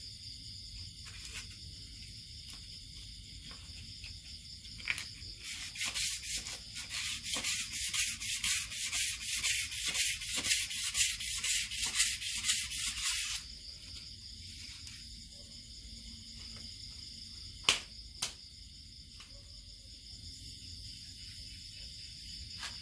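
A cloth rubbed quickly and repeatedly along the palm-leaf noise string of a Khmer kite's bow to clean it: a run of scraping strokes lasting about eight seconds, starting some five seconds in, over steady cricket chirring. Two sharp clicks follow a few seconds later.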